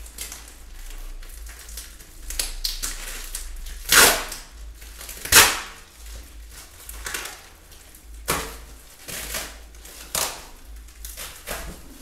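Plastic wrapping of a large parcel crinkling and tearing in sharp, irregular bursts as it is pulled open by hand. The loudest tears come about four and five and a half seconds in.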